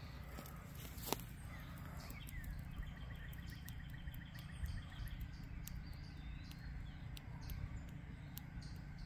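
Faint outdoor ambience: a steady low rumble with a bird's rapid, even trill a few seconds in and scattered faint chirps and ticks. A single sharp click comes about a second in.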